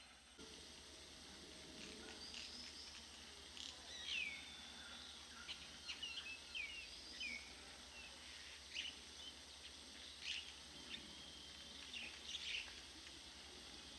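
Several birds calling in the forest: short, sharp chirps and whistled notes, some sliding down in pitch, scattered over a steady high hiss.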